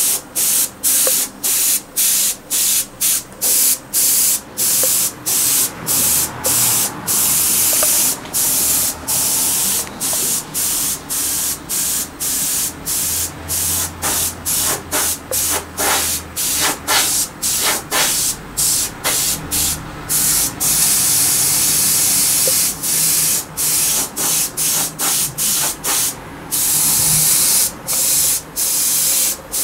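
Airbrush spraying paint in short freehand strokes: a steady hiss of air and paint that breaks off briefly, often more than once a second, each time the trigger is let go.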